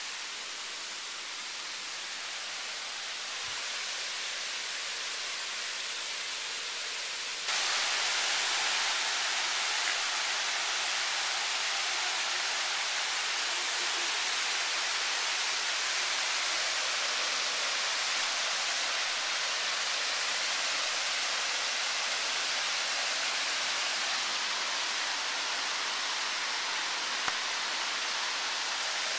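Waterfall rushing: a steady hiss of falling water with no rhythm, which jumps abruptly louder about seven seconds in and then holds steady.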